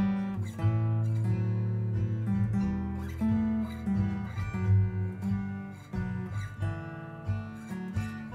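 Steel-string acoustic guitar played solo, plucked by hand: bass notes and chords ring over one another as the notes change every half-second or so.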